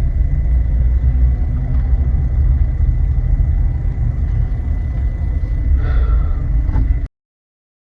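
Steady low rumble of a car driving, heard from inside the cabin. It cuts off suddenly about a second before the end.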